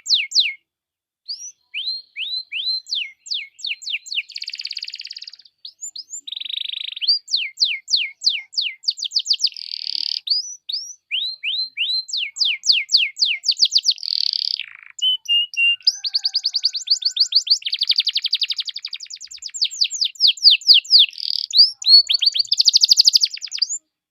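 Domestic canary singing a long, varied song: fast runs of falling chirps and rolling trills, phrase after phrase with short pauses between, cutting off abruptly near the end.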